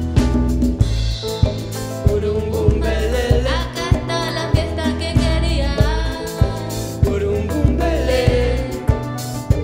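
Live band playing a song with a steady beat: drum kit and congas, guitars and keyboard under a woman's sung lead vocal.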